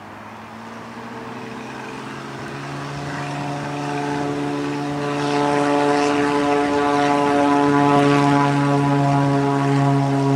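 Piper Saratoga's single six-cylinder piston engine and propeller running on its departure roll down the runway: a steady drone of unchanging pitch that grows louder throughout as the plane draws nearer.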